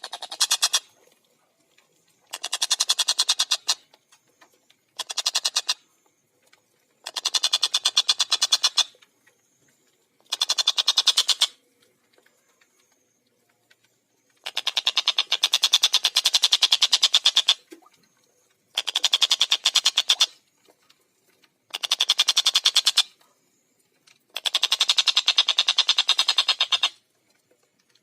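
Tengkek buto kingfisher calling in a run of about nine rapid chattering bursts, each one to three seconds long and separated by short pauses. The pulses in each burst come tight and fast. The longest burst comes about halfway through.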